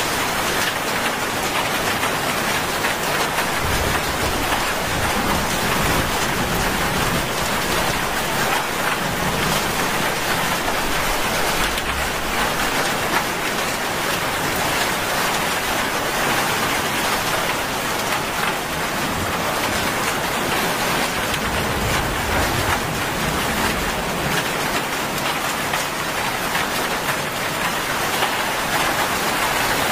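Heavy rain falling steadily, pattering on a wet asphalt road and the roadside foliage, with faint low rumbles now and then.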